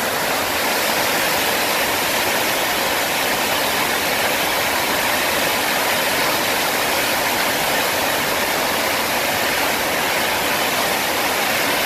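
Steady rush of water pumped in a thin, fast sheet over a FlowRider wave simulator's surface, an even, unbroken roar of spray.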